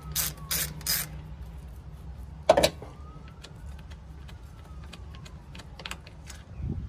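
Small socket ratchet working loose the second 10 mm bolt that holds the plastic coolant expansion tank, three quick strokes in the first second. A sharp knock comes about two and a half seconds in, followed by faint light clicks as the bolt is turned out by hand.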